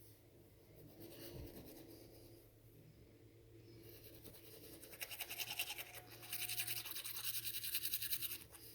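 Toothbrush scrubbing teeth with rapid back-and-forth strokes, starting faintly and getting louder about halfway through.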